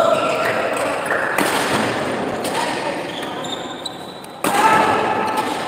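Badminton rackets striking a shuttlecock back and forth in a doubles rally, with thuds of players' footwork, over spectators' chatter and shouts. The crowd noise jumps up suddenly about three-quarters of the way through.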